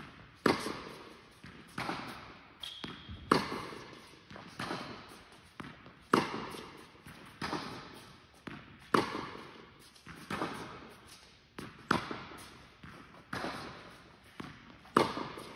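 Tennis rally on an indoor court: racquets striking the ball and the ball bouncing, a sharp pop about every second and a half, each echoing in the hall, with a louder hit about every three seconds.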